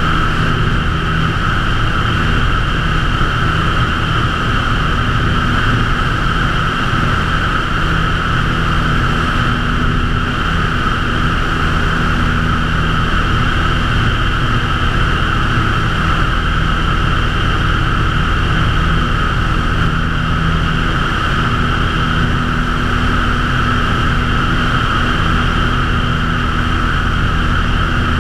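Cessna 152's four-cylinder Lycoming engine and propeller running steadily at full takeoff power through lift-off and the start of the climb. Heard from a camera under the wing, with air rushing past.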